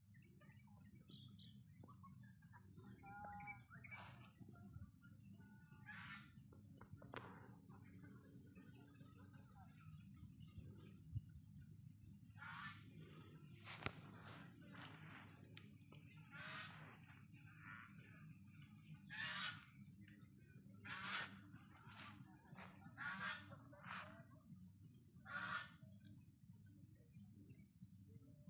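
Faint outdoor ambience on a grassy hillside: a steady high insect drone with a low rumble beneath, and a string of short bird calls in the second half.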